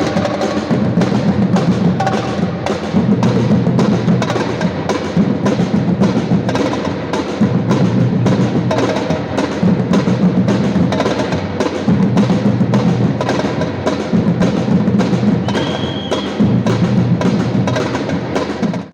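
Percussion-led music with a steady, even drum beat of about two to three strikes a second.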